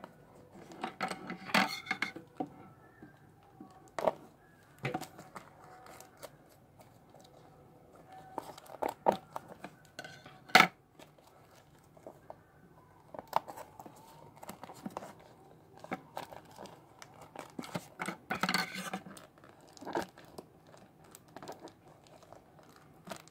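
Clear tape and black plastic parcel wrapping being crinkled, picked at and pulled by hand, in irregular bursts of crackling and tearing with sharp clicks. The wrapping is too strong to tear open by hand.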